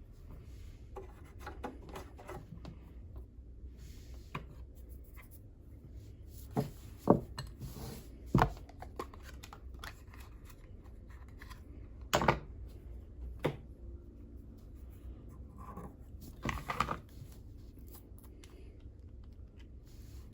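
Small hand tools scraping, rubbing and clicking against the metal inside an old Kenmore sewing machine while dust and stuck old oil are picked out, with scattered sharper taps and knocks.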